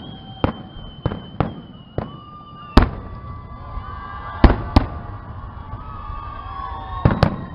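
Fireworks display: about ten sharp bangs at irregular intervals, the loudest about three seconds in, with thin whistling tones running between the bangs.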